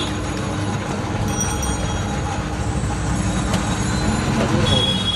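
Motorised sugarcane juice machine running, its rollers crushing cane, with a steady low rumble and thin high whines that come and go.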